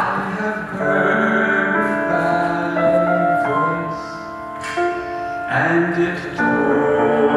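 A man singing solo into a handheld microphone, holding long notes that change pitch every second or so.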